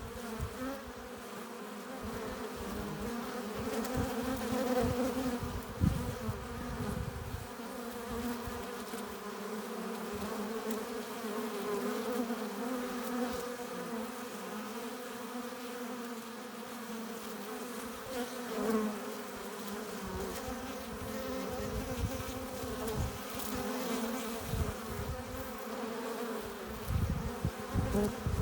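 Honeybees buzzing at a hive entrance: a steady, many-voiced hum of bees flying in and out. Irregular low thumps and rumbles run under it, strongest about six seconds in and near the end.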